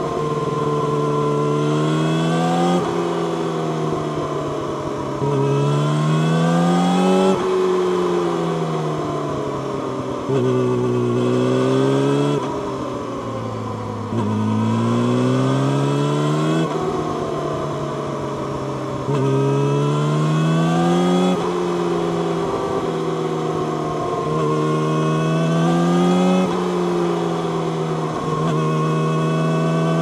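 A 2019 Yamaha YZF-R6's inline-four engine through an Akrapovic megaphone slip-on exhaust, heard from the rider's seat while under way. Its pitch climbs under acceleration and drops sharply at each gear change, over and over, with a few stretches where it falls away as the throttle is eased.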